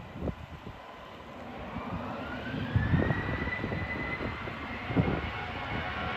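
Jet airliner engines spooling up: a whine climbs in pitch for a second or two, then holds steady as the engine noise grows louder, with wind buffeting the microphone.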